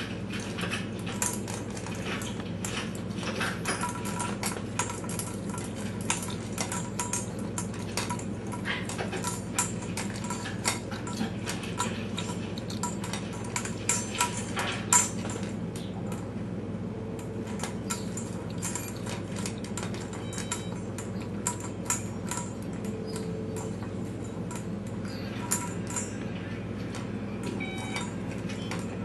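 Dry dog food and a feeding bowl clinking and rattling in irregular sharp clicks, over a steady low hum.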